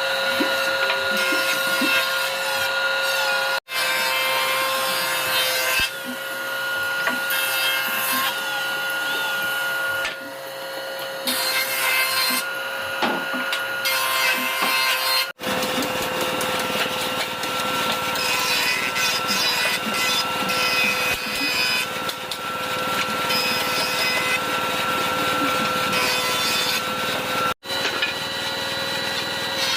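Woodworking power tool running against wood with a steady motor whine, breaking off abruptly three times.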